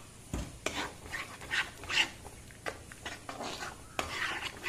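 Spatula stirring thick spinach paste with cream in a nonstick kadhai: a run of short, evenly spaced stirring strokes, about two or three a second.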